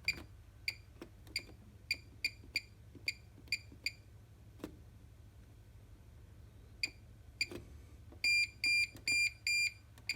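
Bosch HomeProfessional washing machine's control panel beeping as programmes and options are selected: a quick run of short high beeps, then a few spaced single beeps, then four longer, louder beeps about eight seconds in.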